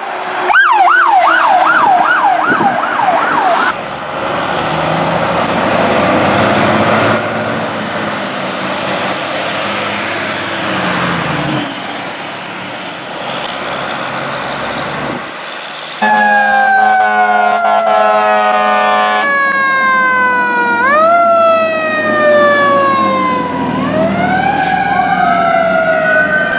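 Fire apparatus sirens over several clips: an electronic siren in a fast yelp for the first few seconds, then siren and truck noise. In the last part a mechanical siren falls slowly in pitch and is wound back up several times.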